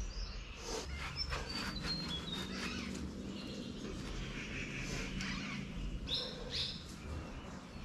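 Birds chirping: a run of short high notes stepping down in pitch over the first few seconds, then a few more high calls about six seconds in, over a low steady background rumble.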